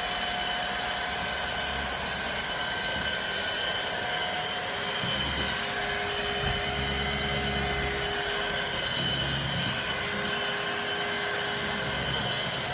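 Vacuum cleaner running steadily, its motor giving a constant whine over a rushing hiss, with a deeper hum that comes and goes in the second half as it is moved about.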